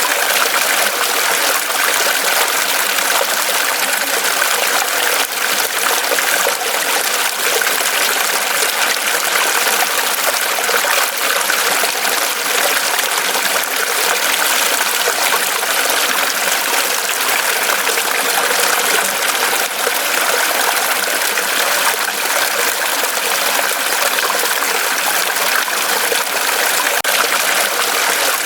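Mountain stream running over rocks, a steady rushing and splashing of water.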